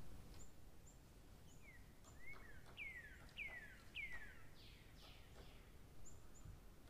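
Faint bird calling: a run of about eight quick chirps, each falling in pitch, with a few short high ticks, over low background hiss.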